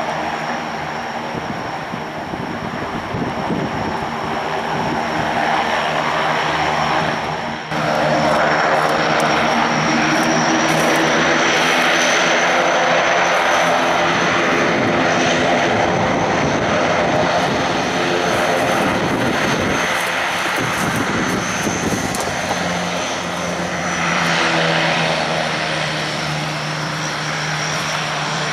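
Antonov twin-turboprop transports taxiing, their turboprop engines running with a steady high turbine whine over a propeller drone. The sound breaks off sharply about eight seconds in and comes back louder.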